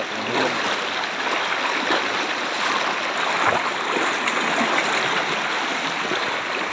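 Floodwater flowing over a submerged road with a steady, continuous rushing sound.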